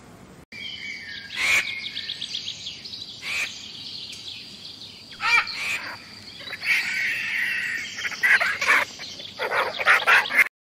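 Mixed songbird calls: a rapid high trill runs throughout, with short chirps and call phrases breaking in, busiest in the second half.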